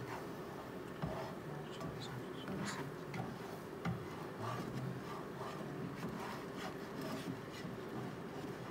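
Plastic spatula scraping and stirring a soft scramble of plant-based egg in a nonstick frying pan, with irregular light scrapes and taps.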